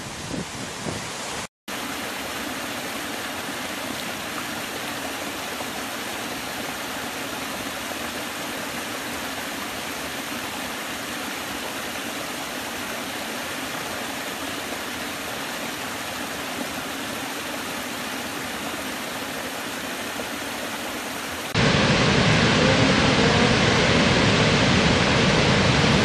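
Rushing water from a series of waterfalls: briefly, wind on the microphone over river rapids at a cliff edge, cut off by a moment of silence; then a steady, even rush of a small cascade spilling over mossy rocks in a forest stream. About 21 seconds in it switches abruptly to the much louder, deeper rush of a huge waterfall pouring into a gorge.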